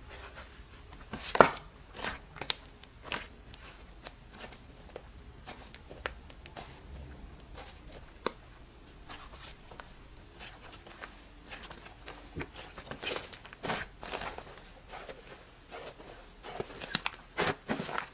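Slime being kneaded by hand with clay mixed in, giving irregular sticky pops and crackles, with a louder pop about a second and a half in and a busy cluster of pops near the end.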